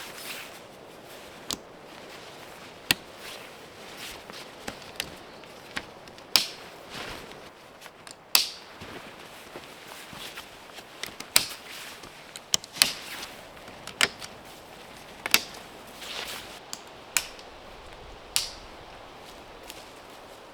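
Irregular sharp clicks and knocks of camping gear being handled during tent setup, about a dozen spread unevenly over a steady outdoor background.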